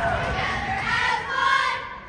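Middle school cheerleading squad shouting a cheer in unison, many high voices chanting together; the chant breaks off near the end.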